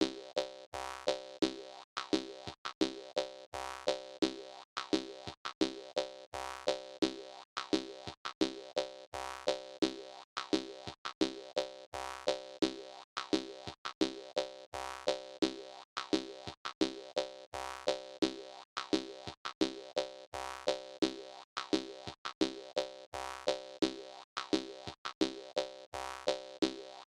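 Jaw harp music: a steady, evenly repeating rhythm of plucked, twanging notes.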